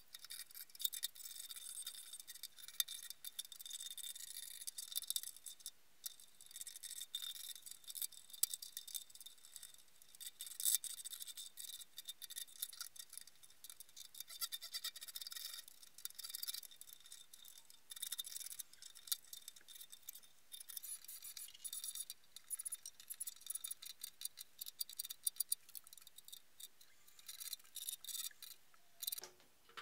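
Faint, rapid small clicks and light clinks of hard plastic parts and steel rods being handled and set down on a wooden table.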